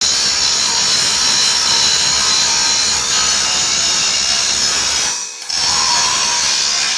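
A power tool running steadily with a hissing, high-pitched noise that breaks off briefly about five seconds in, then starts again.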